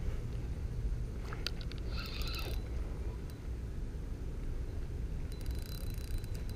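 Spinning reel: a few clicks and a short rattle about two seconds into the cast, then from about five seconds in the reel is cranked, a fast run of clicks with a thin steady whine. A steady low rumble runs underneath.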